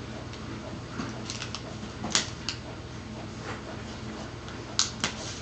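Scattered clicks and short scrapes of a knife cutting and working a thin plastic Pringles can lid, the loudest about two seconds in and a quick pair near the end, over a steady low hum.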